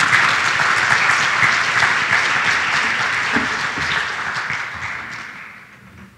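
Audience applauding, loudest at first and dying away over the last couple of seconds.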